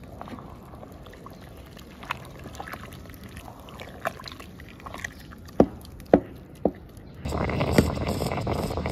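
Wooden paddle stirring thick porridge in an aluminium pot: scattered wet squelches and plops, with three louder ones about half a second apart in the second half. Near the end a louder steady rushing noise comes in.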